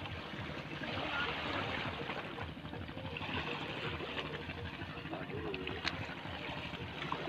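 Water lapping and trickling against a concrete seawall, a steady wash with faint distant voices and a single sharp click about six seconds in.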